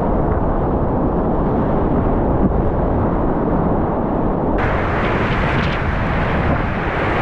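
Rushing whitewater of a river in high flood: a loud, steady roar, heavy in the low end. It sounds dull at first and turns brighter and hissier about four and a half seconds in.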